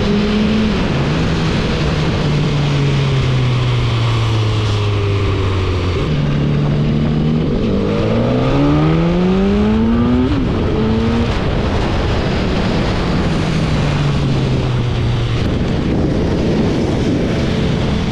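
Sport motorcycle engine heard from the rider's seat under heavy wind noise. The engine pitch sags, jumps up about six seconds in, then climbs hard under acceleration. It drops sharply at a gear change around ten seconds and falls away slowly as the bike eases off.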